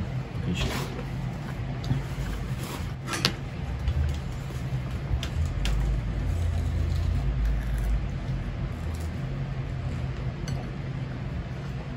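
A low steady rumble that swells for a few seconds in the middle, with a few sharp clinks of metal forks against plates.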